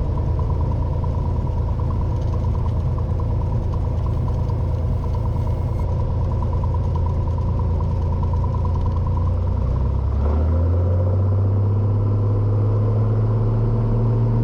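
Cessna 182's six-cylinder piston engine and propeller at full takeoff power on the takeoff roll, a steady drone. About ten seconds in, its pitch steps up and it gets slightly louder.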